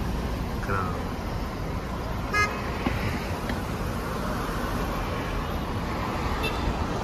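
Steady road and engine noise of a car being ridden in, with one short car horn toot about two and a half seconds in.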